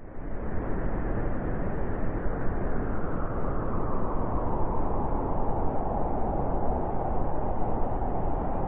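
Steady rushing wind, an even low-to-mid noise that cuts in abruptly at the start after a moment of silence.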